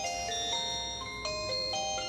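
Nokia feature phone playing a ringtone melody: clean synthetic chime-like notes, about two to three a second, running on without a pause.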